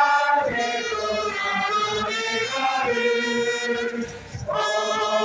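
Cheering-band trumpets playing a fan chant while a crowd of fans sings along in unison. The music breaks off briefly about four seconds in, then picks up again.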